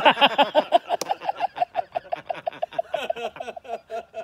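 One person laughing hard and close by, a fast run of short "ha" pulses that is loudest at the start and slowly tails off.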